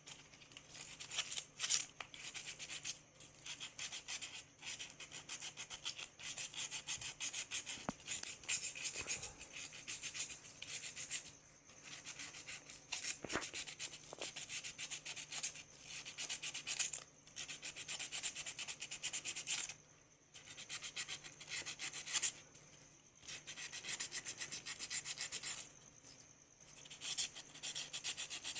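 Fast, repeated abrasive rubbing on the metal of an old rusted bearing, going in spells of several seconds with brief pauses: rust being scrubbed or sanded off.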